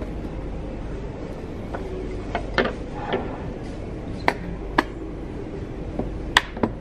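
China coffee cup and saucer being set down on a table: a run of sharp clinks and knocks, about eight, the loudest near the end, over a steady room hum.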